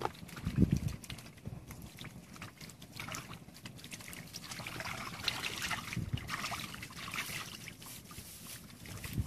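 Hands groping and scooping in shallow muddy water, with splashing and squelching mud and a couple of low thuds, one about half a second in and another near six seconds.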